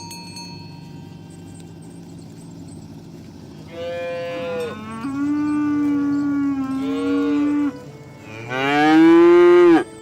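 Cattle mooing: a long call of about four seconds that drops to a lower, steadier pitch partway through, then a louder, shorter moo that rises and falls, about eight and a half seconds in.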